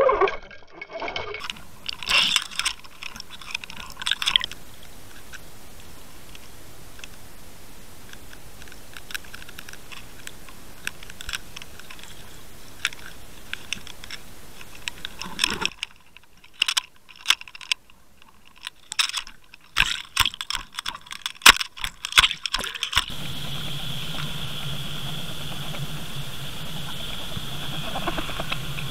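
Muffled underwater sound picked up by a Water Wolf camera on a fishing line: a steady hiss of water with scattered clicks and knocks, and a steady hum joining in the last several seconds.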